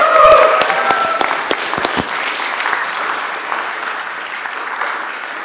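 An audience applauding, dying away gradually.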